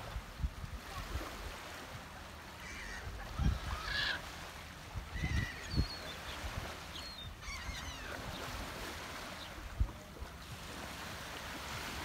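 Gulls calling several times, short honking cries in a cluster through the middle of the clip, over a steady hiss of light surf, with a few low thumps of wind on the microphone.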